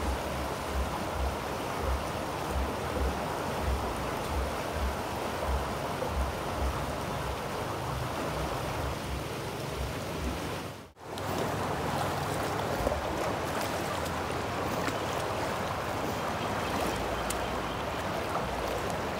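Swollen, fast river water rushing steadily over the riverbed, with soft low thumps about twice a second through the first half. The sound drops out briefly about halfway through.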